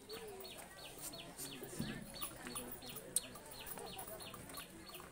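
Chickens clucking, with a fast even train of short high falling chirps, about four a second, and faint voices in the background.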